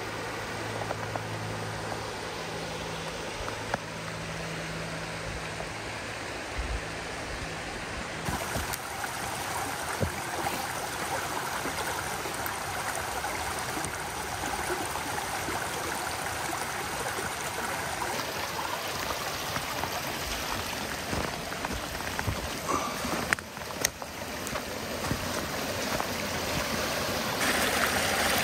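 Steady rush of flowing creek water, growing louder near the end.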